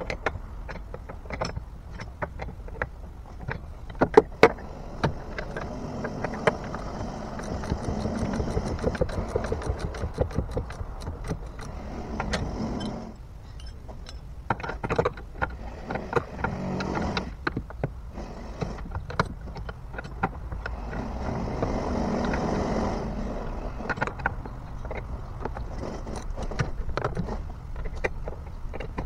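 Socket ratchet wrench clicking in runs as the outboard's mounting bolts are tightened back down, with a few loud sharp metal clanks about four seconds in.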